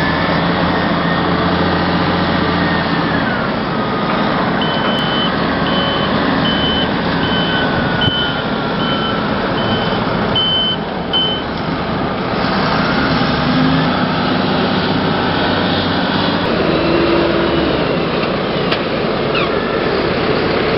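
Heavy machine's diesel engine running steadily, with a reversing alarm beeping a little faster than once a second for several seconds, starting about five seconds in.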